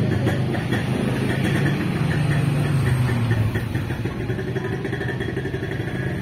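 A motor vehicle engine running steadily.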